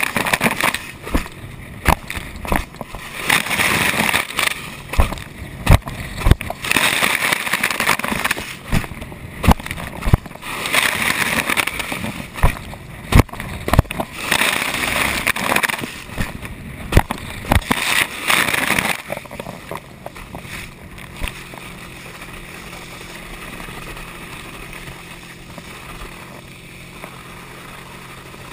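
Water rushing and spray hitting an action camera on a slalom water-skier, in loud hissing surges every three seconds or so with sharp knocks. After about 19 seconds it drops to a quieter, steady low hum of a boat engine.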